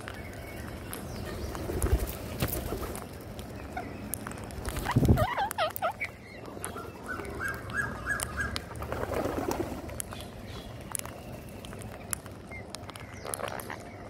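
Rose-ringed parakeets feeding on scattered rice, with many light pecking clicks and bird calls: a wavering call over a louder low rumble about five seconds in, a run of six short even notes just after, and lower calls around nine seconds and again near the end.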